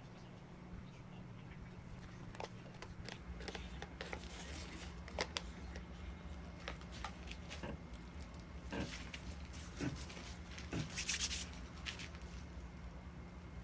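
Small scattered clicks and taps from a plastic cup and hands working over a canvas while pouring acrylic paint, with a brief rustle about eleven seconds in, over a steady low hum.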